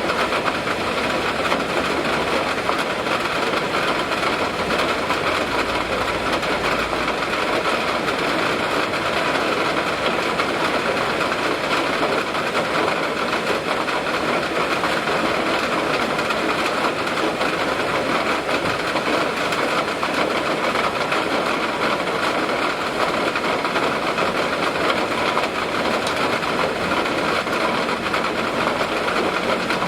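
Steady rain and wind, an even hiss with no thunderclap or change in level.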